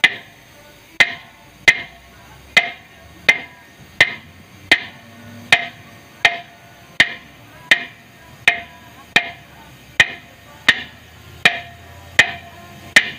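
Sledgehammer striking a truck's steel brake drum in a steady rhythm, about eighteen blows a little under a second apart, each with a short metallic ring. The blows are to work the drum onto the hub over new brake linings.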